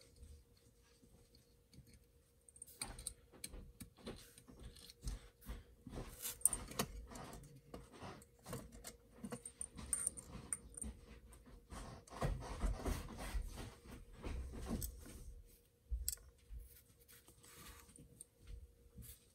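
Irregular small metal clicks, taps and rattles as a Spyderco folding knife is reassembled, its screws fitted and its parts handled, busiest a little past the middle.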